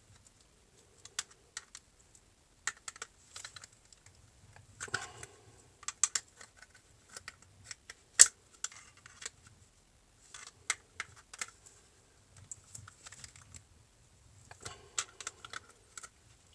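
Small metal parts of a door lock clicking, tapping and scraping as a tool works a tight-fitting piece out of the lock body, in irregular clusters of light clicks with one sharper click about halfway through.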